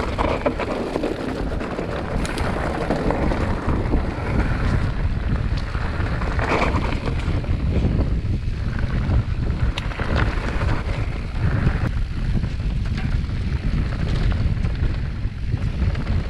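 Wind buffeting the microphone of a mountain biker's camera during a fast descent, with the tyres rumbling over the rough trail and occasional sharp knocks from the bike.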